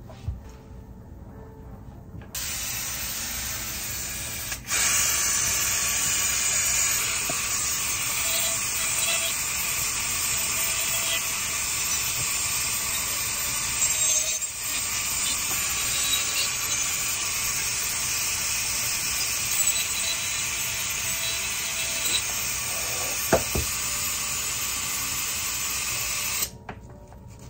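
Corded dental handpiece running steadily and grinding. It starts about two seconds in, gets louder a couple of seconds later, and cuts off near the end.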